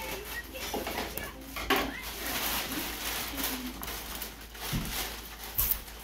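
A thin white plastic bag rustling and crinkling as it is handled, with a few sharper crackles, the loudest about two seconds in.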